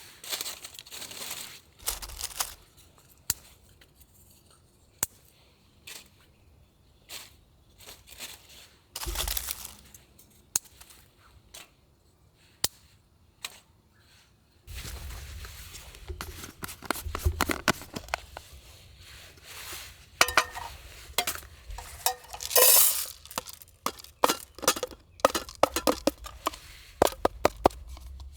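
Cooking-preparation handling sounds: rustling and tearing, light clinks of cookware, a brief ringing clink, and a run of quick sharp taps near the end.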